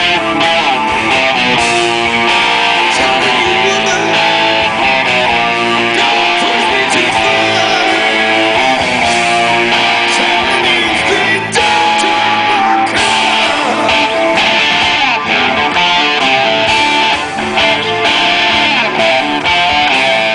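Live rock band playing loud and steady, with electric guitars to the fore, heard from the audience.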